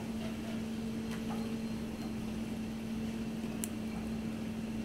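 Steady low machine hum, one constant pitch, from kitchen equipment, with a single sharp tick about three and a half seconds in.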